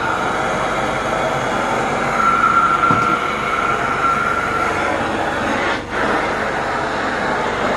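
Carpet-cleaning machine running steadily: a loud motor rush with a high whine over it, dipping briefly about six seconds in.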